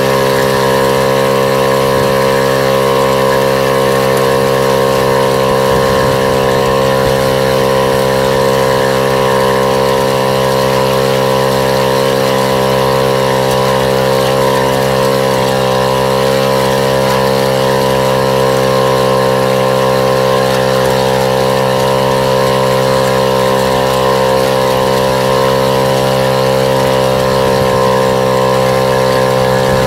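Small engine running at a steady, unchanging speed, one even drone throughout.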